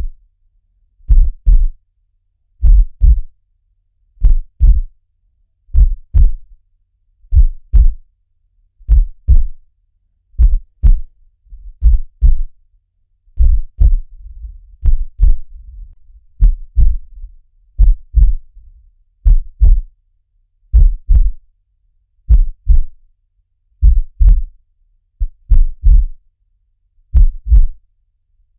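Heartbeat sound on a loop: steady low lub-dub double thumps, one beat about every one and a half seconds.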